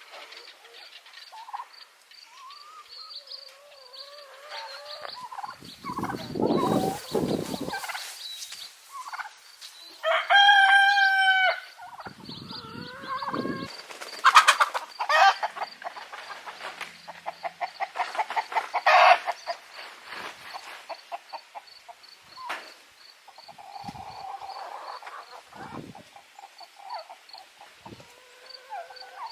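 Chickens clucking around a mixed backyard flock, with a rooster crowing once, loudly, about ten seconds in, and a turkey gobbling in rapid pulsing bursts a few seconds later. Crickets chirp steadily behind.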